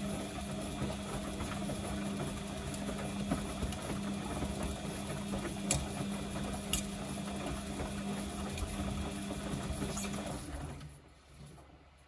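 Samsung front-loading washing machine running, its drum motor giving a steady hum while the drum turns fast with the wet load, with two sharp ticks a little over halfway through. About ten and a half seconds in, the motor winds down and the drum comes to a stop.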